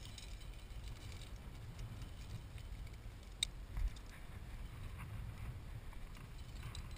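Wind rumbling on the microphone, with small clicks and rustles of climbing rope and carabiners being handled at a belay; one sharp click about three and a half seconds in, followed by a soft thump.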